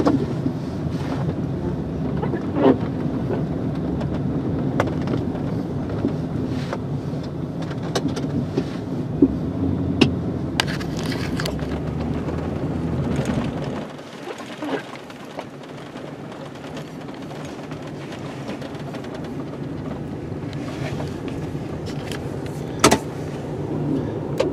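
Snowplow truck's engine running steadily, with scattered knocks and clicks, then dropping suddenly to a quieter, lower running level about fourteen seconds in.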